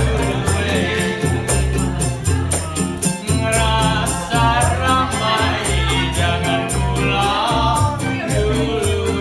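Live acoustic band music with a woman singing the melody over two small strummed ukulele-type instruments, a cello and an upright double bass.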